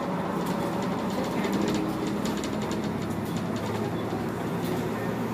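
Volvo B7TL double-decker bus cruising at steady speed, heard on board: its 7.3-litre six-cylinder diesel drones steadily under road and wind noise, with many light rattling ticks.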